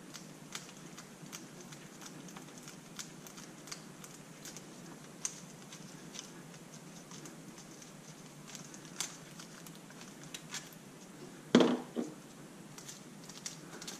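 Light metallic clicks, taps and scrapes of bolts and the cam chain tensioner being handled and removed from a small motorcycle engine, with one louder thump a little before the end.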